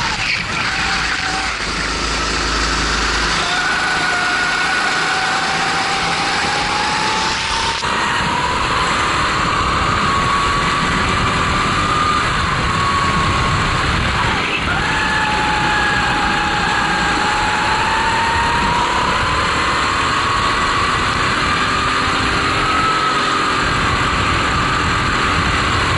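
Honda GX270 four-stroke kart engine running at race pace, its note rising and falling as the kart accelerates and slows for corners, over a steady hiss of wind and spray from the wet track.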